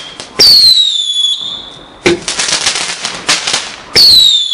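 Garden fireworks going off in a repeating sequence: a loud whistle falling in pitch about half a second in, a burst of dense crackling pops at about two seconds, then another falling whistle near the end.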